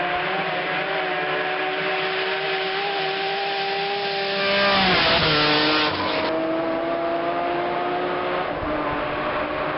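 Race car at full throttle climbing a gravel road. Its engine note builds as it approaches, is loudest as it passes close about five seconds in with a sharp drop in pitch, then carries on climbing away with the pitch slowly rising.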